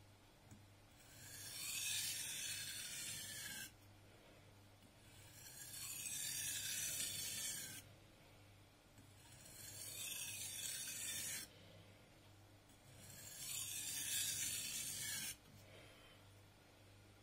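Masutani VG10 Damascus nakiri blade being sharpened on a wet whetstone, the steel scraping back and forth across the stone in a gritty rasp. It comes in four bouts of about two and a half seconds each, each building up and then stopping suddenly.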